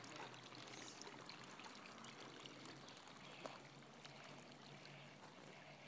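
Faint, steady trickle of water running down the rocks of a small backyard waterfall and splashing into a pool.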